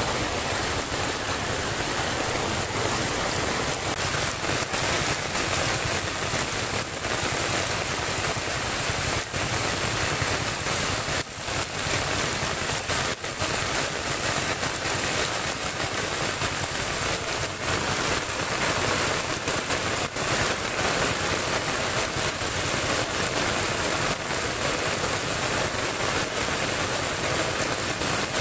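Heavy typhoon rain pouring down in a steady, even hiss.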